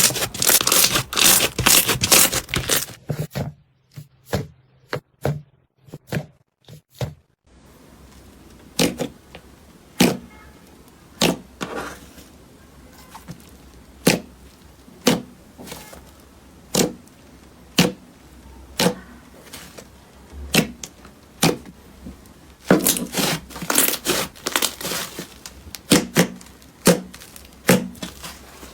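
Slime being squeezed and poked, making crisp crackling clicks and pops: dense runs of crackles at the start and again near the end, with slower single pops roughly once a second in between.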